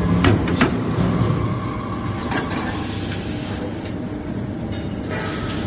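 Forge-shop machinery of a 250-ton hot forging press line running with a steady low hum, broken by sharp metallic clicks and knocks, the loudest pair coming just after the start.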